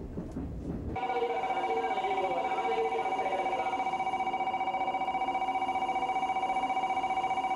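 Rumble of a train running cuts off about a second in. It is followed by a Japanese station platform's electronic departure bell ringing steadily as a rapid two-tone trill, the signal that the train is about to leave.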